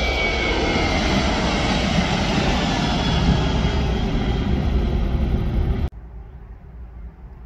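Boeing 737 jet engines at takeoff thrust as the airliner climbs out overhead: a loud roar with a whine that falls slowly in pitch. After about six seconds the sound drops suddenly to a much quieter distant rumble.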